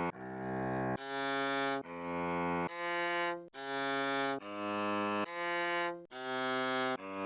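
Music: a solo cello-like bowed string playing a slow melody of sustained notes, each just under a second long and swelling in, one after another at changing pitches.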